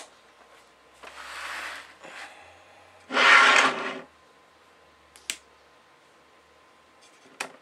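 Handling noise as small electrical gear is picked up and plugged in: a sharp click, a rustle, a loud rushing burst of about a second near the middle, then two short clicks near the end.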